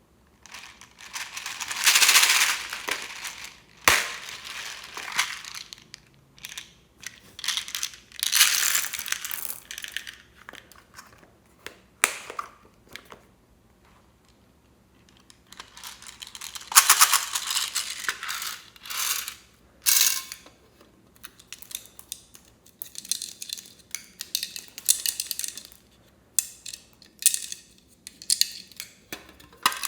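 Slime being squeezed, poked and stretched by hand, giving irregular bursts of crackling and clicking from trapped air, with short pauses between handlings.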